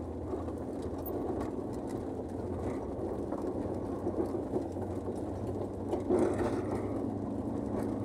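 Volkswagen Kombi motorhome driving slowly up a steep dirt road, heard from inside the cab: steady engine hum with road noise from the tyres on the dirt, and a brief louder bump about six seconds in.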